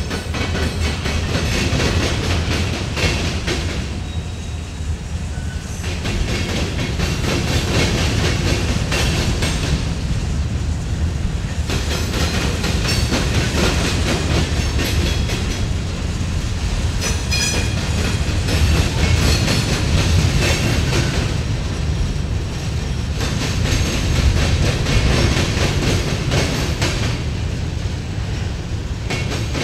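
Covered hopper cars of a freight train rolling past, with a steady low rumble and repeated wheel clatter as the wheels pound over the rail crossing diamonds.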